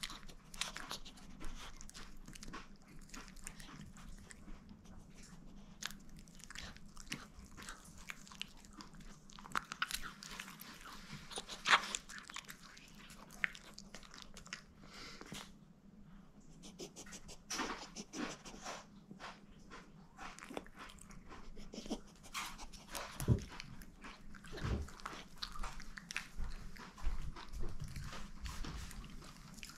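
A chihuahua chewing and crunching on pieces of chicken: irregular crunches and clicks throughout, with a few louder crunches.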